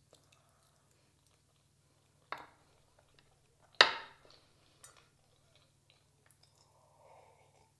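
Metal fork clinking against a ceramic plate and then set down on the table: two sharp clinks about a second and a half apart, the second louder, then a lighter tap. Near the end, a faint sip of tea from a glass.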